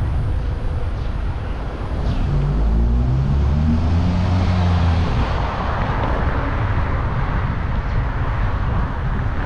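A car engine accelerating, its note rising in pitch for a few seconds, then tyre and road noise swelling as the car passes. The smooth climb without a break fits an automatic transmission, which is how it is taken.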